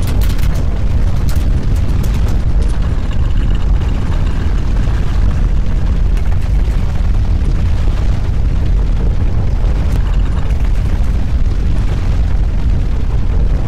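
Loud, steady deep rumble of earthquake ground shaking, with a few faint clicks in the first few seconds.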